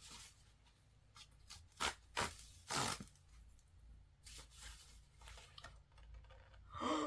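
Paper and plastic album packaging being handled: short rustles and scrapes, the three loudest close together about two to three seconds in, softer ones after.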